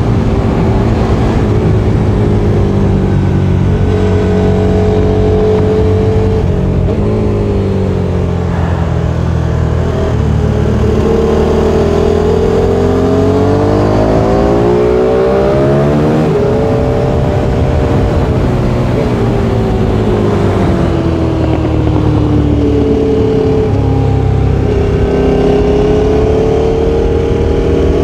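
KTM RC8's V-twin sport-bike engine heard from an onboard camera at racing speed. It revs up through the gears and drops in pitch under braking and downshifts, with sharp drops about a third of the way in and just past halfway.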